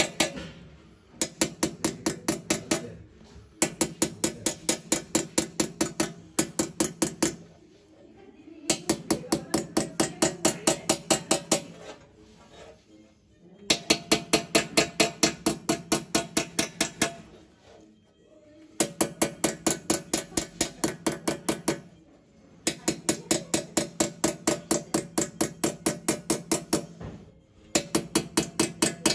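Small hammer rapidly tapping a steel chasing punch into a brass tray, engraving a decorative pattern by hand. The taps come several a second in runs of a few seconds with short pauses, and the brass rings under each run.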